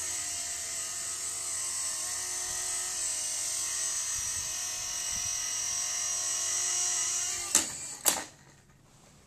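Blade mSR micro RC helicopter's small electric motors and rotor running with a steady high whine. Near the end come two sharp knocks as it hits down, and the whine stops.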